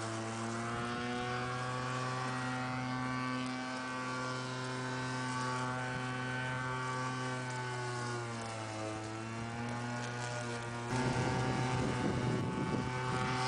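Walk-behind lawnmower running steadily, its pitch sagging briefly twice. About eleven seconds in it becomes louder and rougher.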